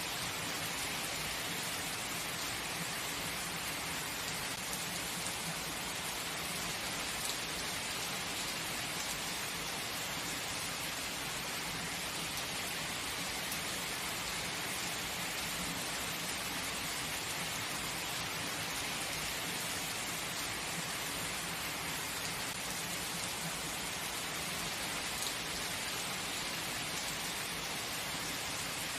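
Steady heavy rain falling and pattering on surfaces, an even unbroken hiss with no distinct thunderclap.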